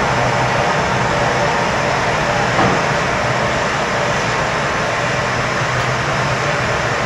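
Steady rushing roar of gas flame: a hand-held torch playing on hot glass amid the hot shop's burners, with a light tap of a tool about two and a half seconds in.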